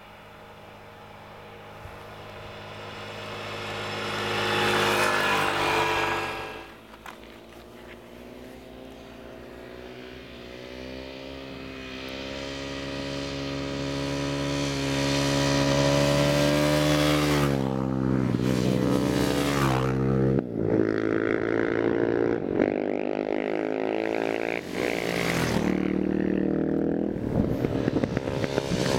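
An engine grows louder to a peak about five seconds in and then cuts off. Supermoto motorcycle engines then rev with their pitch climbing steadily as two bikes approach on their rear wheels. In the second half the revs drop sharply and pick up again several times.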